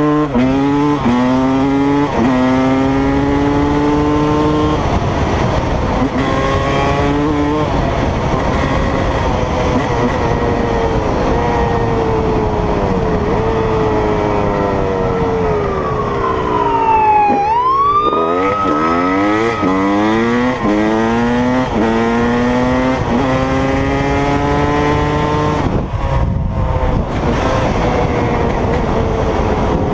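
Dirt bike engine revving hard and running up through the gears, its pitch climbing and then dropping back at each shift. About two-thirds of the way through the revs fall away as the bike slows, then climb sharply again and it upshifts once more.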